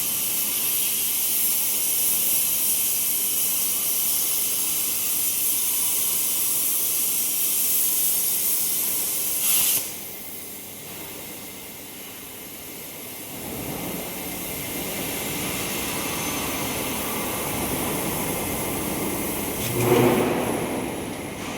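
CNC plate-cutting torch hissing steadily as it cuts steel plate, ending with a short louder burst about ten seconds in. After that comes a quieter, lower rumbling noise, with a brief loud clatter near the end.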